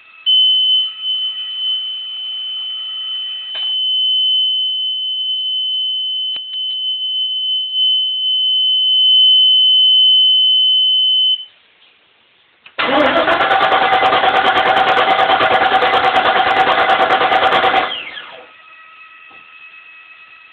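A steady high-pitched warning buzzer sounds for about eleven seconds. After a short pause, the Chaparral boat's starter cranks the engine for about five seconds in a cold start, and the engine does not catch: it won't start.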